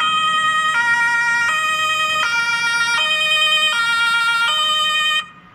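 Two-tone German emergency siren (Martinshorn) of a Rosenbauer Panther 8x8 airport crash tender, switching between its two notes about every three-quarters of a second. It cuts off abruptly near the end.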